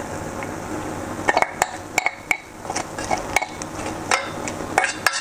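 A metal spoon clinking and scraping against metal cooking pots in a run of sharp, irregular strikes with short ringing, starting about a second in, as cooked minced meat is spooned into a pot of caramelized onions.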